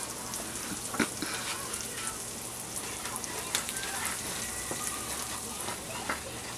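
Onions and flour sizzling in hot oil in a stainless steel skillet while a spoon stirs the flour in to brown it for a gravy roux, with scattered sharp knocks of the spoon against the pan, the loudest about a second in.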